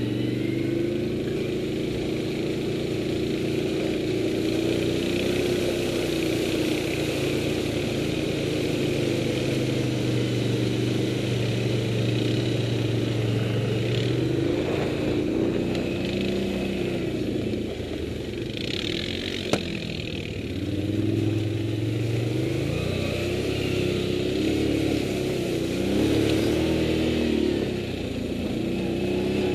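Motorcycle engine running at low speed on a rough dirt track, its pitch rising and falling as the throttle is opened and closed. A single sharp click about two-thirds of the way through.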